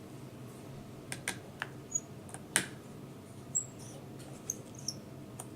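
Irregular small clicks and taps of hands handling laptop screen parts, about nine in all, with a few faint short high squeaks.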